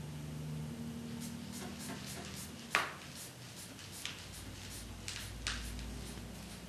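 Light clicks and rubbing from handling a blood pressure cuff and its hand bulb during a manual reading by palpation. One sharper click comes a little under three seconds in, and a few softer ones follow.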